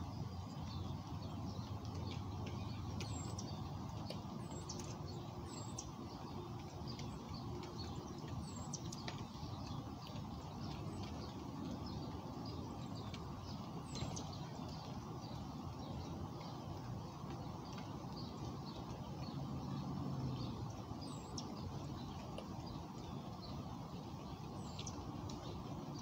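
Wild songbirds chirping with short, scattered high calls over a steady low outdoor rumble, with a brief wing flutter about halfway through.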